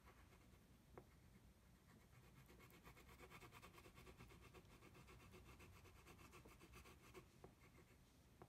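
Faint scratching of a wax crayon rubbed quickly back and forth over paper that already carries several layers of crayon, with a few small clicks.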